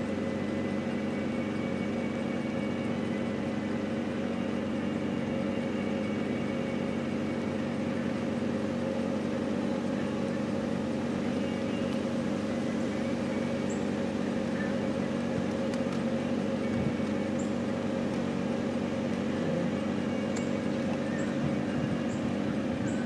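Diesel freight locomotives running steadily, a constant low engine drone from an approaching train.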